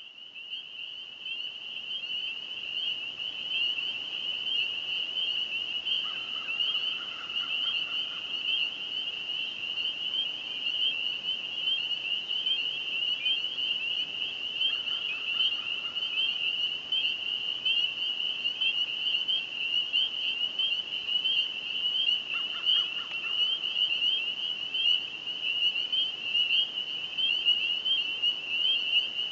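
Chorus of spring peeper frogs: many high, piercing peeps overlapping into a dense, continuous chorus, fading in over the first few seconds. Three short, lower-pitched trills stand out about 6, 15 and 22 seconds in.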